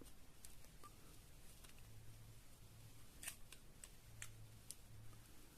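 Faint, scattered scrapes and clicks of a knife blade cutting at the plastic insulation of a 14-gauge electrical wire, slow, awkward work.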